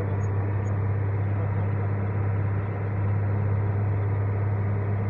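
Vehicle engine running steadily at cruising speed, heard from inside the cab as a constant low drone over tyre and road noise.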